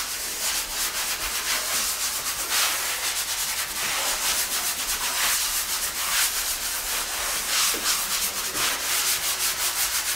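Sanding sponge rubbed by hand in quick back-and-forth strokes over dried drywall joint-compound patches: a rhythmic run of short hissing strokes, several a second.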